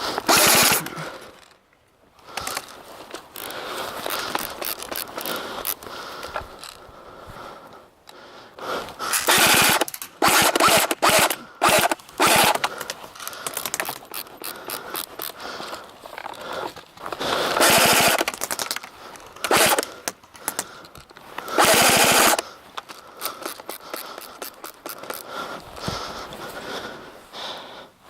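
Airsoft guns firing in repeated bursts of rapid shots, with several louder rushes of noise between the bursts.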